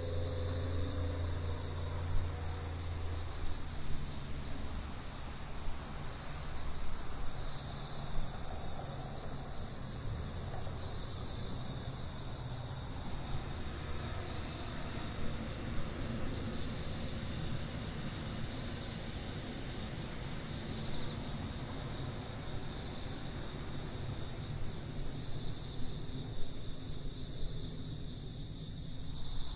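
Night chorus of crickets, bell crickets (suzumushi) among them, singing steady high trills. A second, higher-pitched insect song grows stronger about halfway through, over a faint low rumble.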